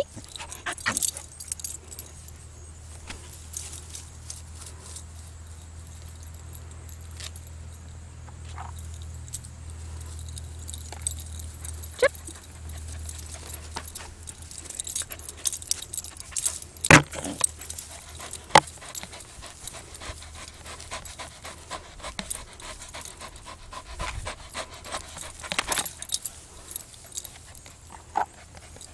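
Cattle dog at play close to the microphone, with metallic jingling and scattered clicks and rustles. A low rumble runs through the first half.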